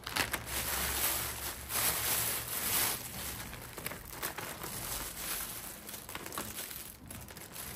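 Thin plastic bags crinkling and rustling in irregular bursts as handfuls of dried fruit are lifted out of a clear bag and dropped into a zip-lock bag.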